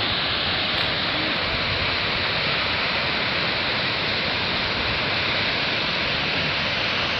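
Water discharging from the outlets of Kurobe Dam's concrete arch wall: a steady, unbroken rush of water plunging into the gorge below.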